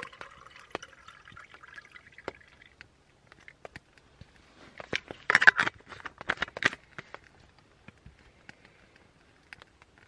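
Water pouring and trickling for the first three seconds or so, then scattered clicks and a short burst of clattering knocks about five to seven seconds in as camp cookware is handled over a lit burner while breakfast coffee is made.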